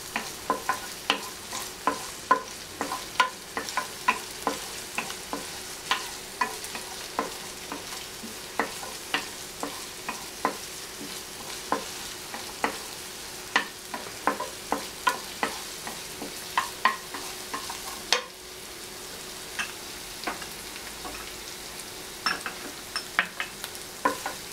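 Chopped onion, garlic and ginger sizzling in oil in a frying pan while a wooden spatula stirs them, scraping and knocking against the pan about twice a second. The stirring briefly pauses about three quarters of the way through while the sizzle goes on. The onion is being sautéed only until it turns translucent.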